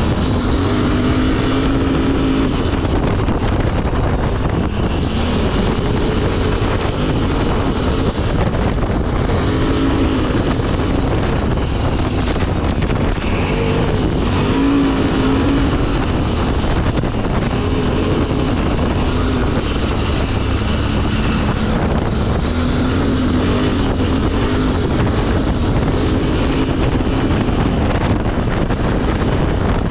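ATV engine running under way on a gravel trail, its pitch rising and falling again and again with the throttle, over a steady rush of noise.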